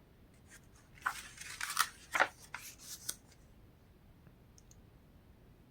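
Paper rustling as a book page is turned: a quick run of crisp rustles and flaps lasting about two seconds.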